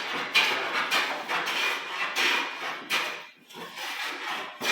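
Metal-body No. 7 jointer hand plane taking repeated shaving strokes along a rough board, about six strokes with a short pause a little after three seconds in, as it flattens the face.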